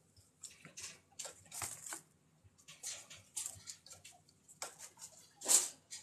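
Chinchillas shuffling in wood-shaving bedding and a metal dust-bath tray: irregular short rustles and scratches, the loudest one near the end.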